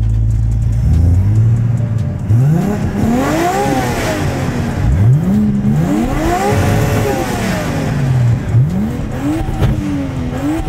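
Single-turbo BMW 335i's N54 inline-six revved while stationary: idling at first, then two long revs up and back down, followed by a few shorter blips near the end. It revs cleanly without breaking up, which is unusual for this car.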